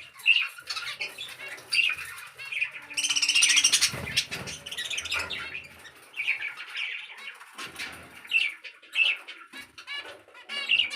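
A room of small cage birds chirping and chattering, many short calls overlapping, with a loud harsh burst of chatter about three to four seconds in.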